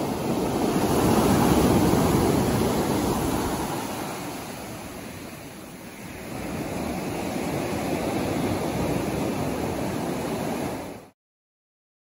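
Ocean surf washing up a pebble beach. A wave surges in and drains away, a second swells up about six seconds in, and then the sound cuts off abruptly near the end.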